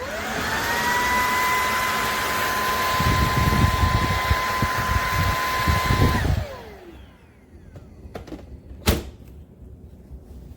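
Bissell PowerClean FurFinder cordless stick vacuum switched on: its motor spins up to a steady high whine over a loud rush of air, with an uneven low rumble partway through, then is switched off and winds down with a falling whine. A single sharp click follows a few seconds later.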